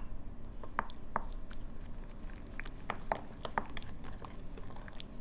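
Wooden spoon stirring thick mayonnaise mixed with paprika and ground spices in a glass bowl, making short irregular clicks and squelches.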